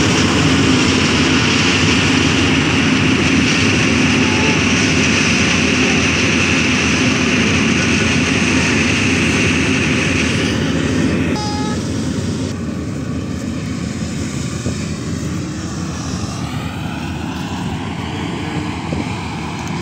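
Balkar B-525 combine harvester running under load as it cuts and threshes wheat: a steady, dense engine and machinery noise with a low hum. The noise grows somewhat quieter after about twelve seconds as the machine moves off along the field.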